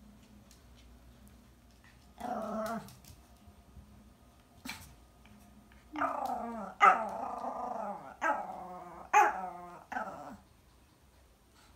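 Toy poodle growling and whining while its teeth are wiped with gauze. There is one short call about two seconds in, then a run of calls from about six to ten seconds in, with the sharpest, loudest ones near seven and nine seconds.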